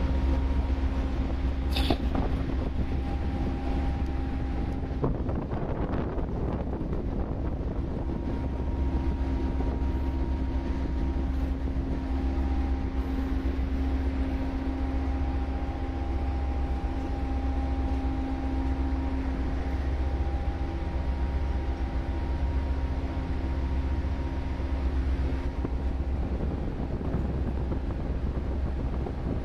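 Steady low drone of running ship's machinery heard from inside the steel scrubber tower, with a few faint steady tones over it. A single sharp click about two seconds in.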